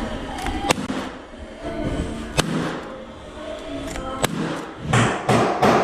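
Cordless Paslode finish nailer firing nails with sharp single cracks, a second or two apart, with a quicker run of loud bursts near the end, over background music.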